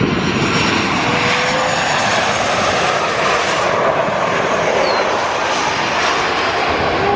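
Jet airliner flying past on its landing approach, its engine noise loud and steady, fullest around the middle.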